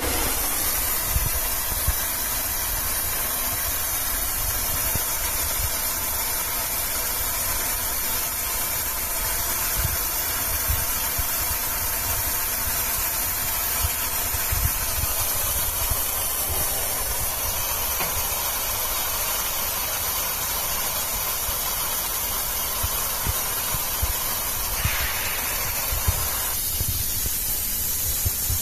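Laser-GMA hybrid welding machine at work: a steady hiss with irregular low pops and crackles. About 26 seconds in, part of the midrange noise drops away while the hiss carries on.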